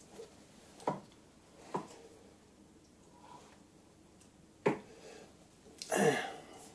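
A few sharp separate knocks and clicks from hands working the lathe's stepped spindle pulley and drive belt, with a longer, louder rustling scrape near the end.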